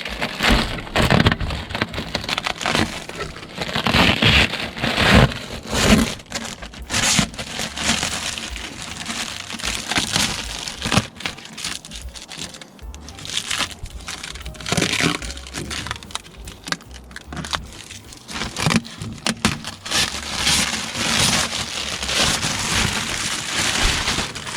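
Protective plastic film being peeled off a polycarbonate sheet, with irregular crackling and tearing.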